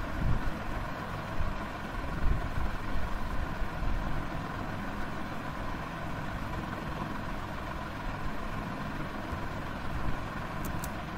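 Steady low rumbling background noise with a faint hum and no speech. Two faint high ticks come near the end.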